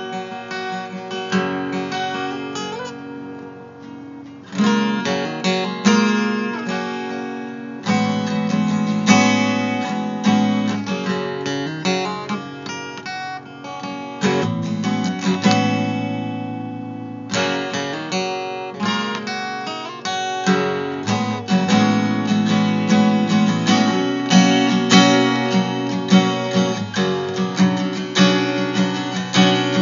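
Acoustic guitar music, strummed and picked, softening for a couple of seconds before coming back in strongly about four and a half seconds in.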